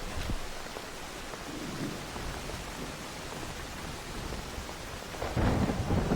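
Steady rain-like hiss, with a louder low rumble coming in about five seconds in.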